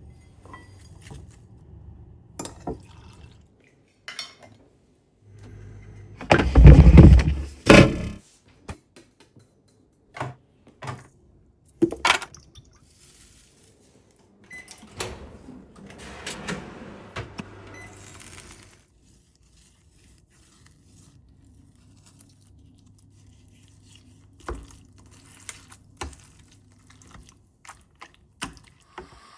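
Kitchen preparation sounds: dishes and utensils knocking and clinking, with a loud rush of running or pouring liquid for about two seconds, about seven seconds in.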